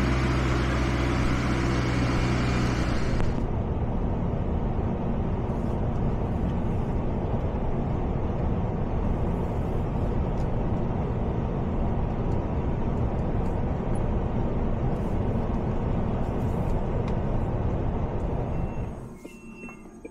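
For about the first three seconds, a wheeled excavator's diesel engine runs steadily. Then, after a cut, there is steady tyre and wind noise inside the cab of a MAN eTGX electric truck on the road, with no engine sound. About a second before the end the road noise drops off sharply, leaving faint high tones.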